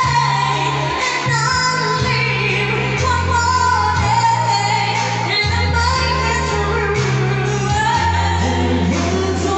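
A female singer sings a pop ballad into a microphone over backing music, her voice holding and bending long notes above sustained bass notes that change every second or two.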